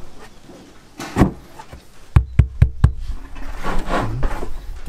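Sharp knocks of a large subwoofer driver and hands against a wooden speaker box as the driver is seated in its cutout: one knock about a second in, then four quick knocks in a row about two seconds in.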